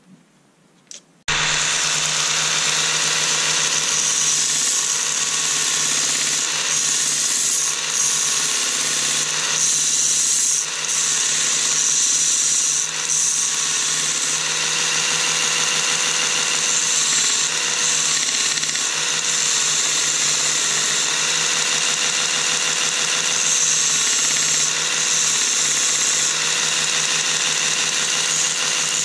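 Homemade 25 mm belt sander driven by an 18 V cordless-drill motor, starting suddenly about a second in and then running steadily, with a small metal part held against the abrasive belt.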